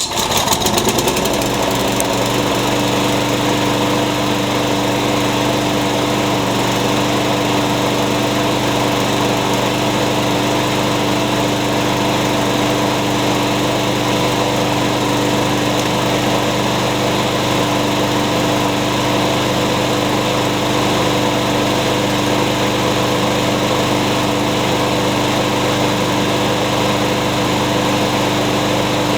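Small engine of a self-propelled walk-behind lawn mower starting up, its pitch rising over the first second or two, then running steadily at an even speed. It is the engine's first run after the blade-brake kill switch was held off with a zip tie and carburetor cleaner was sprayed in; it sounds pretty good.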